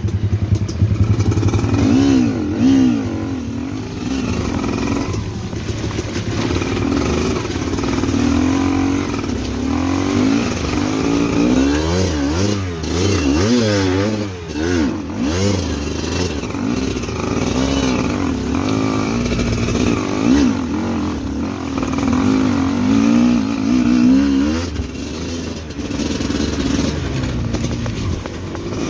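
A vehicle engine revving up and down again and again while climbing a rocky, slippery track, with a few sharp knocks around the middle.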